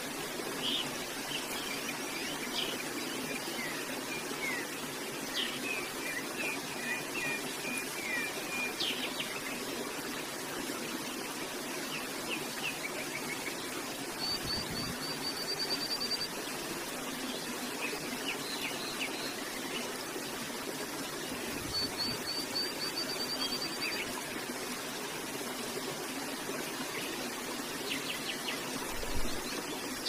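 Steady rush of a flowing stream with songbirds chirping over it, thickest in the first third, and twice a quick run of high repeated notes. A brief low thump near the end.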